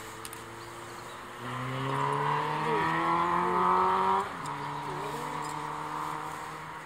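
A motor engine droning at a steady pitch that climbs slowly. It swells about a second and a half in, drops sharply about four seconds in, then runs on more quietly and fades.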